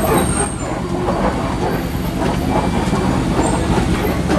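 Safari ride truck driving along its track, a steady low rumble of engine and road noise.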